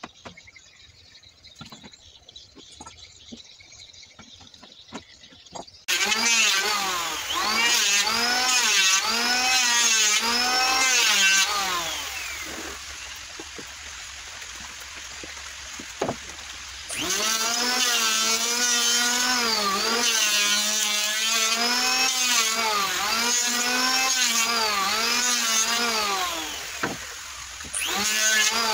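Faint clicks and knocks, then about six seconds in an electric hand planer starts. Its motor whine dips and recovers in pitch again and again as the blades bite into wood. The whine drops away for a few seconds midway, then the planer runs and cuts again.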